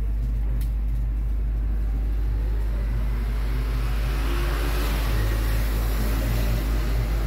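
Steady low engine rumble, unchanging throughout.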